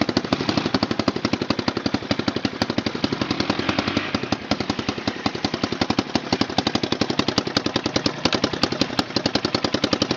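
Four-wheeler engine idling close by, a steady, even putting of about nine beats a second.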